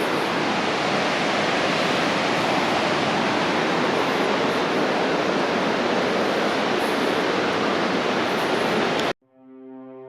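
Waterfall: a steady, loud rush of falling water that cuts off suddenly about nine seconds in, followed by quiet sustained music tones.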